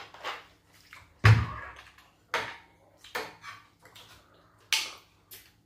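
Tableware being handled on a glass-topped table, with plastic water bottles, a drinking glass and a spoon in a bowl of garri. There is a dull thud just over a second in, then four or five sharp clinks and crackles spaced through the rest.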